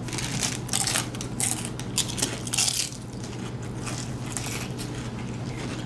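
Crisp fried tortilla, a loaded chip or hard taco shell, crunching as it is bitten and chewed close to the microphone. A run of sharp crackles comes over the first three seconds, then the sound quietens.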